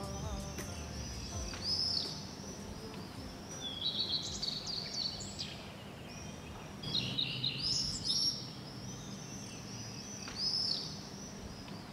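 Birds chirping outdoors at dusk: short high arching calls come in little bursts about every three seconds, over a faint steady hum of background noise.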